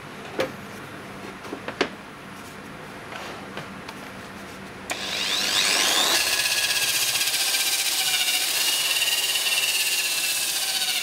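A 700 W electric rotary polisher with a sanding disc, set to its lowest speed, switches on about five seconds in. Its motor quickly comes up to speed and then runs steadily with a whine as the pad sands a pallet-wood board. The whine's pitch wavers slightly under load. Before it starts there are a couple of short knocks.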